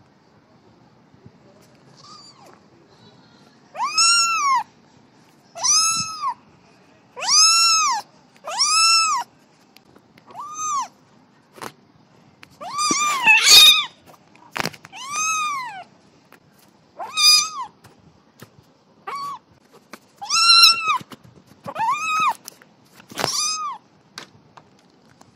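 A kitten meowing again and again: about a dozen high-pitched meows, each rising and then falling in pitch, one to two seconds apart. A few short clicks fall between them.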